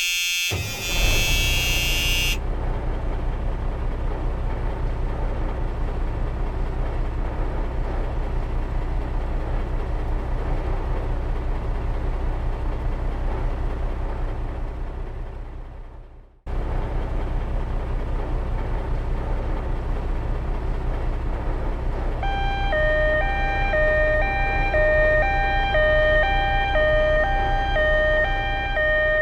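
Sound-effect soundtrack: a vehicle engine running steadily with a low rumble, fading out and stopping about sixteen seconds in, then starting again. From about twenty-two seconds in, a two-tone emergency siren joins it, alternating between two pitches over and over. A brief bright tone sounds in the first two seconds.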